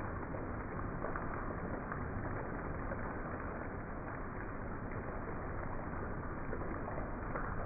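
Heavy rain pouring steadily onto a driveway, lawn and trees: a dense, even hiss of falling water with scattered small drop taps.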